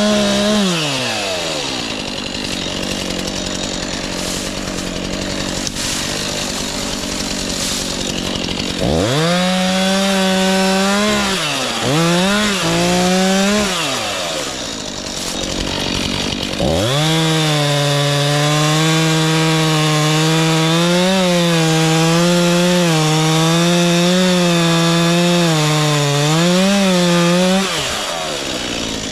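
Stihl MS 251 two-stroke chainsaw cutting storm debris. It drops from a rev at the start, gives a few short bursts of throttle about ten seconds in, then runs at full throttle for about ten seconds with the pitch dipping and rising under load, and drops back to idle near the end.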